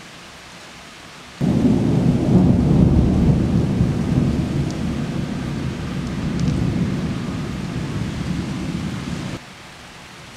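Steady rain, then a long roll of thunder begins suddenly about a second in. It is loudest at first, eases off slowly, and cuts off sharply near the end.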